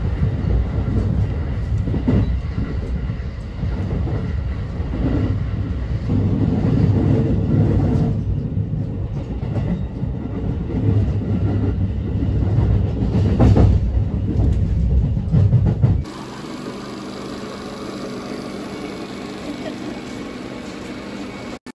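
Moving train heard from inside the carriage: a loud, steady low rumble of wheels on the rails that swells and eases. About sixteen seconds in it cuts off abruptly to a much quieter steady hum.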